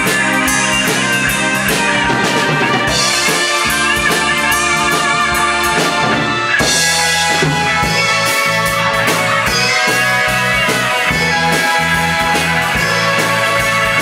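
Rock band playing live: an electric guitar lead with bent, wavering notes over a drum kit with steady cymbal hits and a bass guitar.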